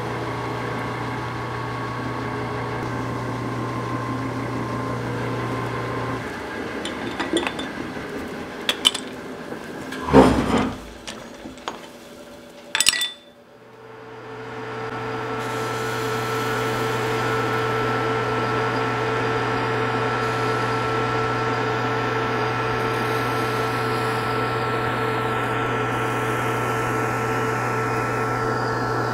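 Metal lathe running with a steady hum, which stops about six seconds in. A few sharp knocks and clanks follow. Then the lathe starts again and runs steadily, with a hum and a higher whine.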